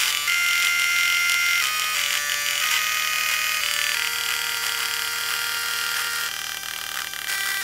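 Dot matrix printer driven to play a melody: buzzy held notes that step from one pitch to another, the first held for over a second, as the print head travels across the paper.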